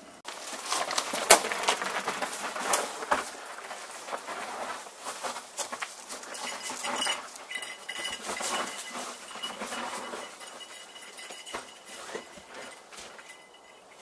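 Footsteps and an electric mountain bike being pushed over dry leaves and stony dirt: crunching with many sharp clicks, loudest about a second in, then a dog's paws pattering past on the dirt. In the second half a thin high tone comes and goes.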